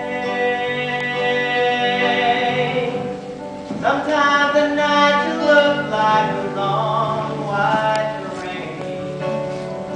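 Slow stage-musical ballad: voices singing long held notes over instrumental accompaniment.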